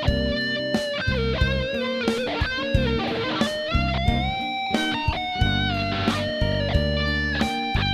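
Electric guitar (PRS SE Custom 24 through a Boss GT-1 multi-effects) playing a lead of held, bent notes over a blues backing track in C, with a steady drum beat and bass.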